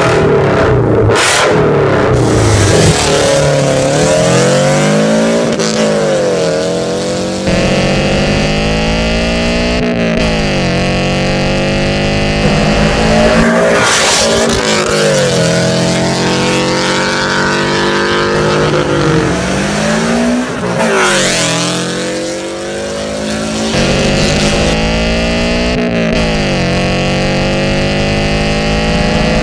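Toyota 86's flat-four engine through an aftermarket dual-tip exhaust, accelerating hard: the note climbs steeply several times and drops sharply at each gear change.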